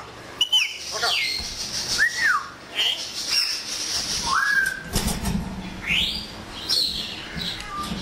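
Congo African grey parrot giving a string of short sliding whistles, some rising and some falling, one every second or so. A brief low rustle comes about five seconds in.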